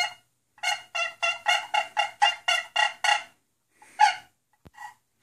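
Turkey gobbling: a quick run of about ten rattling notes at roughly four a second, then a few single notes near the end.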